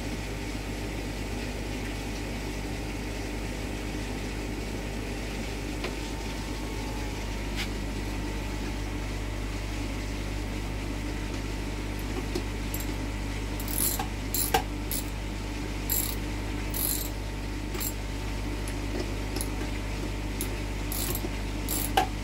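Ratchet clicking in short, irregular runs as a hose clip is tightened onto a pump outlet pipe joint, starting about halfway through, over a steady low hum.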